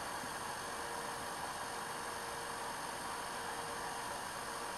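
Steady hiss with a faint, even hum underneath and no distinct knocks or clicks.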